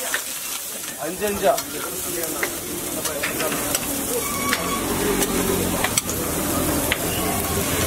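Beaten egg sizzling on a large flat iron griddle, a steady frying hiss, with sharp clicks and scrapes of a metal tool against the griddle every second or so as the egg is scrambled.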